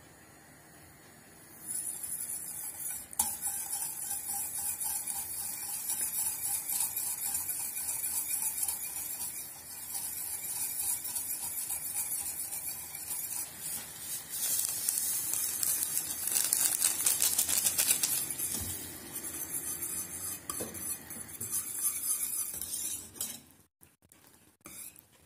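A wire whisk beats sugar into milk in a stainless steel pot, its wires scraping and rattling against the metal in quick, continuous strokes. The whisking starts about two seconds in and stops shortly before the end.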